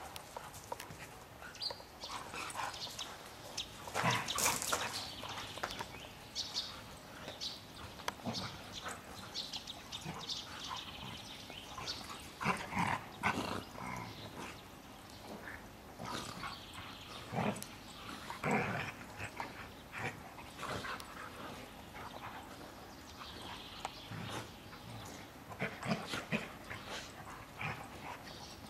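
Standard poodles play-fighting, making short dog noises that come in irregular bursts, several of them louder than the rest.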